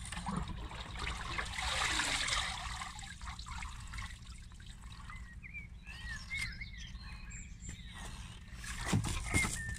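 Liquid trickling and dripping back into a bathtub from a rake-load of soaked stinging nettles lifted out of steeping nettle fertiliser, loudest in the first few seconds. Birds chirp in the second half, and there are two dull knocks near the end.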